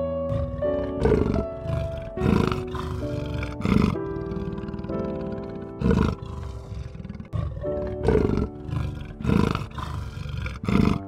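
A big cat giving a series of short roars, about seven in all, spaced one to two seconds apart, over background music.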